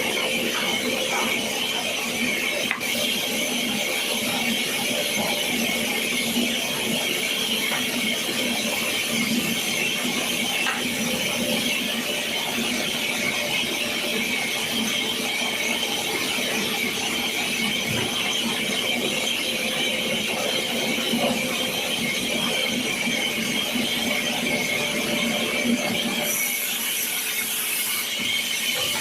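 Sawmill saw blade cutting through a very hard wood log, a steady high whine over the noise of the cut, which shifts in tone about three seconds before the end.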